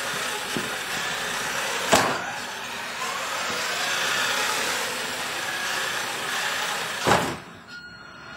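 Electric motor and gear drive of a small radio-control robot car running, its whine rising and falling as it speeds up and slows. Two sharp knocks come about two seconds in and about seven seconds in, and the running sound drops away after the second knock.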